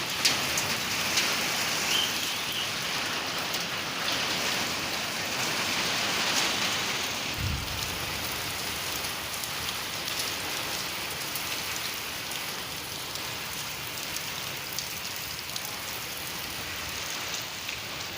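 Heavy rain pouring steadily, with scattered sharp ticks of drops or hailstones striking hard surfaces, easing a little over the second half. A brief low thump comes about halfway through.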